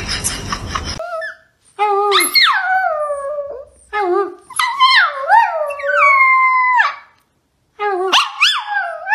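Chihuahuas howling: a run of loud, wavering howls that rise and fall in pitch, with a pause about seven seconds in. They follow about a second of hiss with regular ticking at the start.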